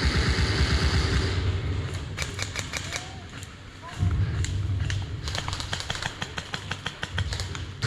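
Airsoft guns firing rapid runs of sharp clicks, one run about two seconds in and a longer one about five seconds in, over a low rumbling on the microphone.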